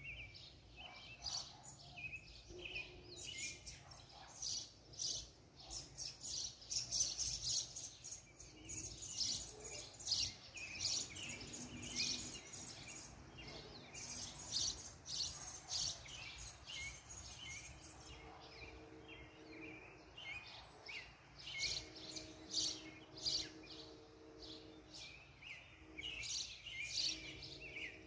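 Many small birds chirping and calling over one another in rapid, overlapping short high notes throughout.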